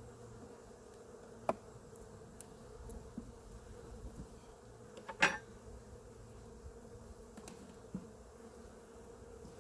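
Honey bees humming steadily on an open hive frame. Two short sharp clicks stand out, about a second and a half in and about five seconds in.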